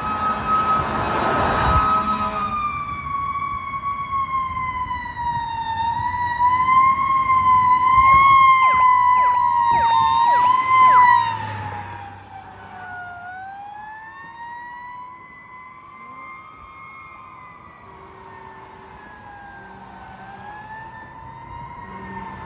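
Fire engine siren wailing in a slow rise and fall of pitch, growing louder as the 2006 Seagrave Marauder II pumper approaches and passes. A few quick sweeping chirps come near its loudest, about nine to eleven seconds in. Then the level drops sharply and the wail carries on fainter as the truck moves away.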